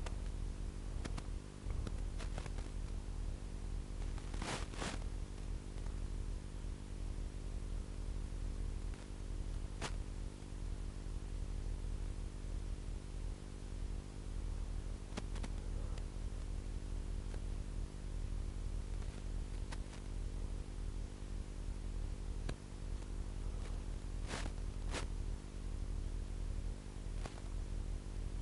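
Steady electrical hum and hiss from a cheap action camera's own microphone, with a dozen or so short sharp clicks or snaps scattered through it. The loudest is a quick pair about five seconds in.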